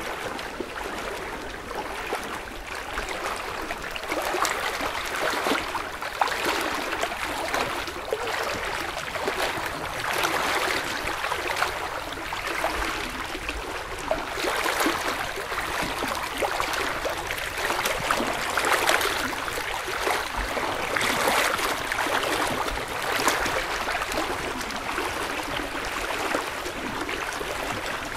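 River water flowing fast along a flooded street, a steady rush of running water that surges unevenly.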